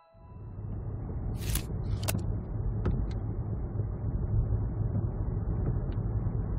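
Car driving, heard from inside the cabin: a steady low road-and-engine rumble, with a few sharp clicks in the first three seconds.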